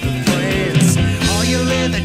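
Rock band recording playing: drums with a steady beat under guitars, with bending notes.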